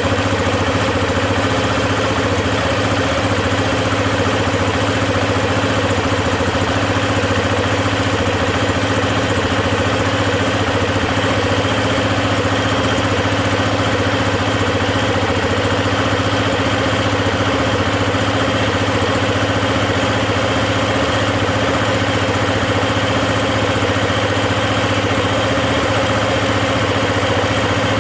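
KTM 690 Enduro's single-cylinder engine idling steadily once warm, with a chatter from the top end that the owner takes for valve chatter after a rebuild with new rockers, shafts and re-shimmed valves.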